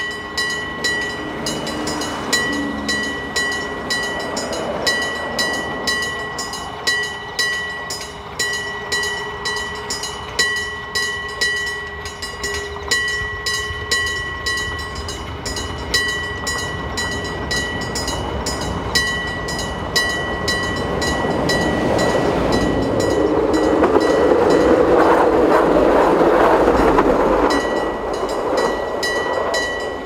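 Electric-bell (denshō-type) level-crossing bell rung by a hammer in a fast, even run of strikes. Its ring is steady throughout. About three-quarters of the way through, a louder rushing rumble of a train running over the crossing swells up, then fades.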